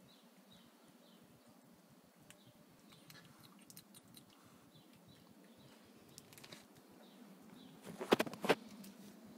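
Faint, high-pitched mewing of three-week-old kittens with small scattered clicks, then a cluster of loud knocks about eight seconds in as the phone is handled.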